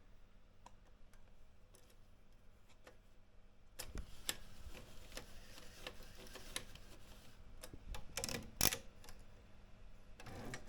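Olympia M8 manual typewriter being typed on. A few faint clicks at first, then irregular sharp key strikes from about four seconds in, loudest around eight seconds.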